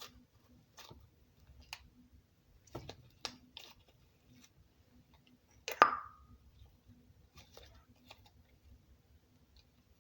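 Butter slime being poked and squished by hand for ASMR: scattered soft clicks and pops, with one sharper pop about six seconds in.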